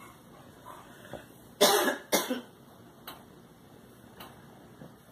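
A person coughing twice, about half a second apart, followed by a couple of faint clicks.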